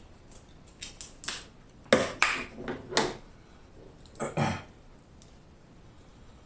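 Snow crab leg shells cracking and snapping as they are broken apart by hand: a quick run of sharp cracks in the first three seconds and another crack about four seconds in.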